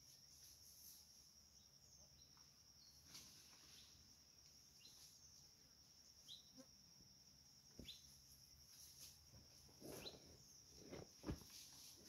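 Faint outdoor rural ambience: a steady high-pitched insect drone with a few short bird chirps scattered through it. A couple of sharp knocks come near the end, the loudest about eleven seconds in.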